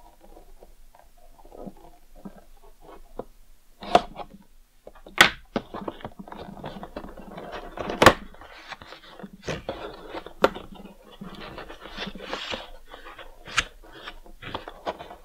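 A cardboard toy box being opened by hand: the tape on its corner slit with a hobby knife and the end flap pulled open, with rustling and scraping of cardboard and about five sharp snaps, the loudest about eight seconds in.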